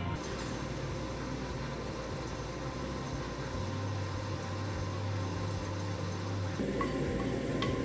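A steady mechanical hum, with a few light clinks of metal cookware near the end.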